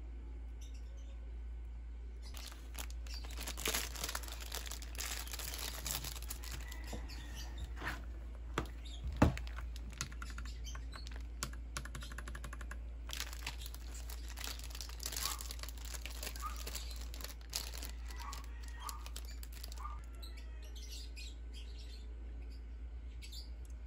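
Crinkling and tearing of a plastic snack wrapper mixed with key clicks on a Royal Kludge mechanical keyboard, with one louder knock about nine seconds in.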